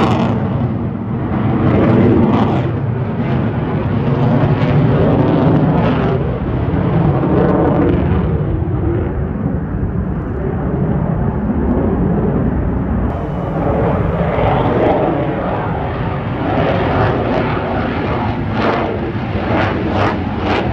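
Sukhoi twin-engine fighter jets flying overhead. Their loud, continuous jet-engine noise swells and fades every few seconds as the aircraft manoeuvre.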